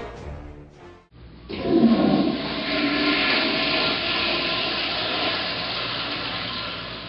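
Toilet in a public washroom stall flushing: a sudden loud rush of water starts about a second and a half in, is loudest at first, then runs on steadily and slowly eases off.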